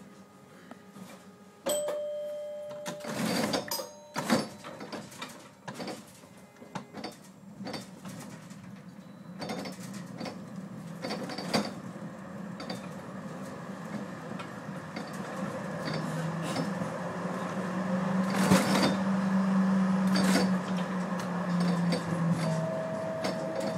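Vienna Type E1 tram running, heard from the driver's cab: a steady series of clicks and knocks from wheels and running gear, with a brief steady beep about two seconds in. A low hum swells in the second half as the tram gets louder.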